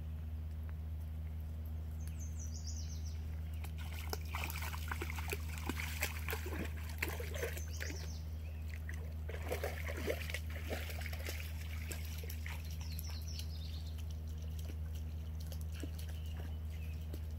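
Water splashing and trickling in irregular bursts for several seconds near the middle, over a steady low hum.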